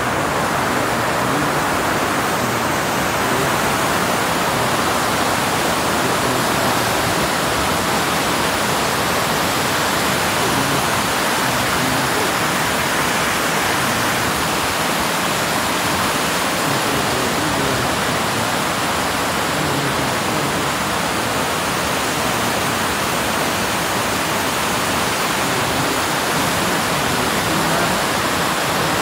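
Water pouring over a low river dam, a steady, unbroken rush of falling water.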